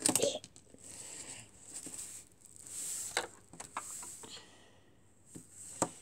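Plastic LEGO minifigures and a toy horse handled on a plastic baseplate: soft scuffing and rustling with a few light plastic clicks and taps, the sharpest just before the end.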